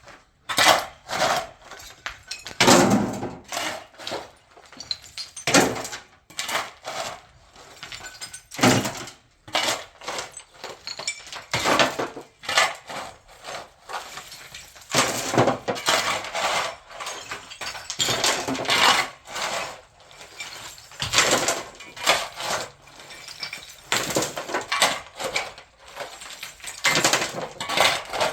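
Irregular clattering of hard, mostly metal objects: sharp clinks and knocks with some longer scrapes, a few a second, continuing throughout.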